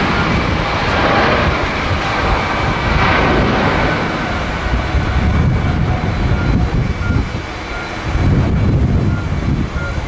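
Boeing 777 twin jet engines at takeoff thrust: a loud, steady rumble as the airliner rolls down the runway toward lift-off.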